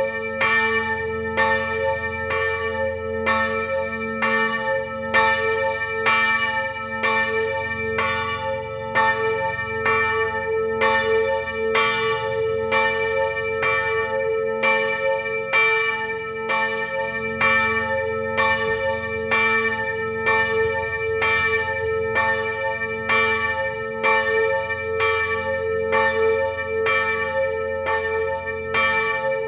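Church bells ringing, struck in a regular beat a little faster than once a second, each stroke ringing on into the next so the tone never dies away.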